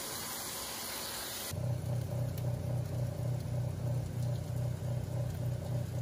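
A wok of Brussels sprouts sizzling and steaming after broth and soy sauce go in. After about a second and a half it gives way to a Breville countertop oven running on convection: a low hum from its fan that pulses about three times a second, with a faint higher tone above it.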